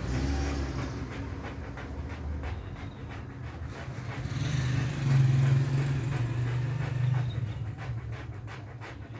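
Hacksaw blade scraping back and forth over a bicycle inner tube's rubber, about three to four quick rasping strokes a second, roughening the area around the puncture so the patch glue will stick. A low steady drone runs underneath and is loudest about five seconds in.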